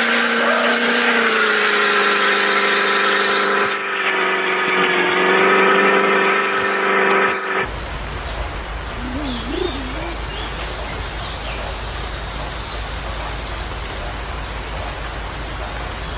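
A steady humming drone of several held tones, dipping slightly in pitch about a second and a half in, cuts off abruptly halfway through. Steady outdoor noise with a low rumble follows, with a few bird chirps soon after the cut.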